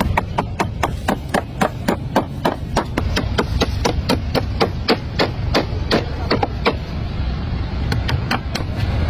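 Rapid, steady hammer blows on the wooden planking of a boat hull, about three a second, breaking off about three-quarters of the way through, then a few more strikes near the end, over a steady low rumble.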